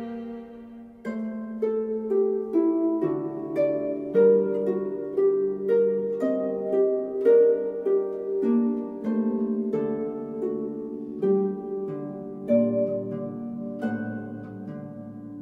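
Background music: a held string chord fades out in the first second, then a melody of plucked string notes follows at about two notes a second.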